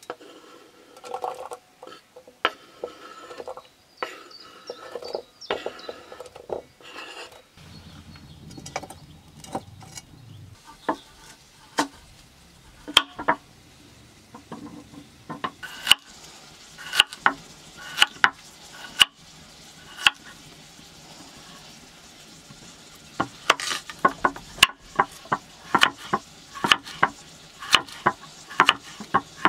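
Irregular sharp clinks and knocks of hard objects being handled, with quieter scraping between, coming thicker in the second half.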